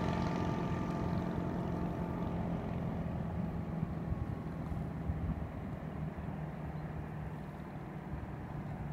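Volga hydrofoil motorboat's engine running at speed, its steady drone fading gradually as the boat pulls away into the distance.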